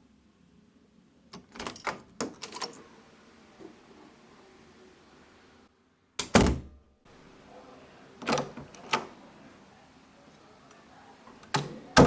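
A door being opened, in two separate recordings: a run of short sharp clicks and knocks from the handle and latch, with a brief dead gap between the takes. The loudest is a heavy low knock about six seconds in.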